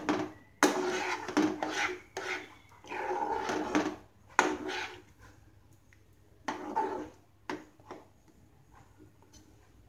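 Spatula scraping and stirring thick semolina halwa round a non-stick frying pan, in irregular strokes that die away about eight seconds in.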